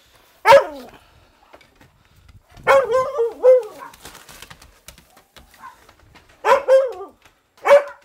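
Hunting dog barking in short, pitched barks: one about half a second in, a run of several around the three-second mark, and two more near the end.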